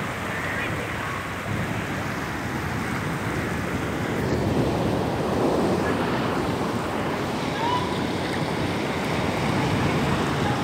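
Seawater surging in over flooded coastal ground during a sea incursion, rushing and churning steadily, with wind buffeting the microphone.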